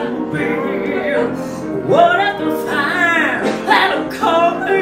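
A woman singing with piano accompaniment, drawing out long notes and sliding between pitches.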